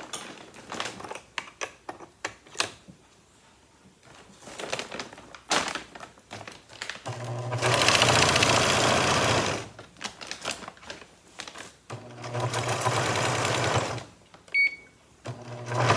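Electric sewing machine stitching through a feed sack in two runs of about two to three seconds each, starting a third run near the end. Between runs come clicks and rustling from the stiff sack being handled, and a short high beep comes just before the last run.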